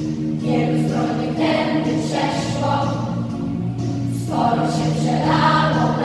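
Children's school choir singing together over a steady instrumental accompaniment, the voices coming in about half a second in.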